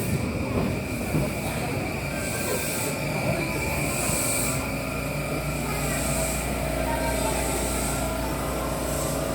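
JR East E235 series electric train rolling slowly along the platform with a steady high wheel squeal over a low rumble. About halfway through, a steady low hum comes in.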